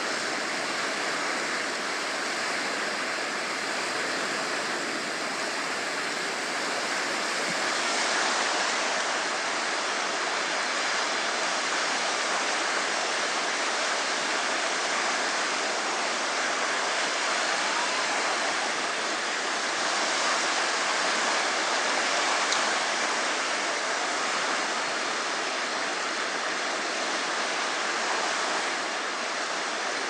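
Small Mediterranean waves breaking and washing in the shallows: a steady rushing of surf.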